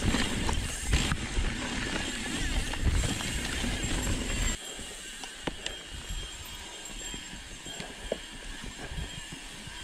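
Kona Process 111 mountain bike descending a dirt singletrack: tyre rumble, wind on the camera and scattered clicks and rattles from the bike. The noise drops suddenly about halfway through, and lighter ticks carry on after.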